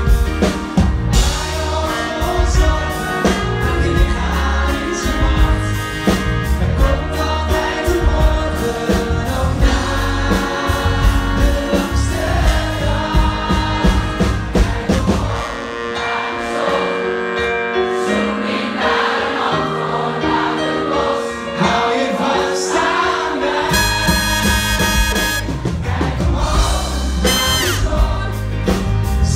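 Live pop band with male lead vocals, acoustic guitar, keyboards and drums. About halfway through, the drums and bass drop out for a quieter passage of voices and sustained keys. The full band with drums and cymbals comes back in near the end.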